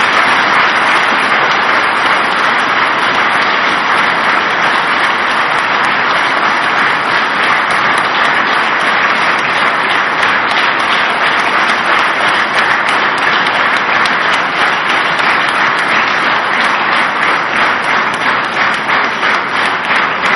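A large seated audience applauding in a hall. The clapping is sustained and dense at first, then thins slightly, with single claps standing out more in the second half.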